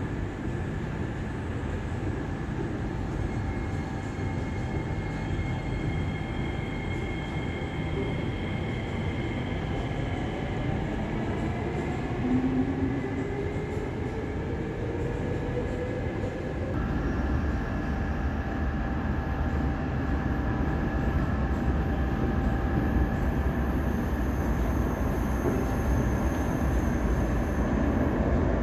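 Metro train pulling out of an underground station, its motor whine rising in pitch as it speeds up over a running rumble. About two-thirds of the way in, this gives way to the heavier low rumble of a train running through the tunnel, slowly growing louder.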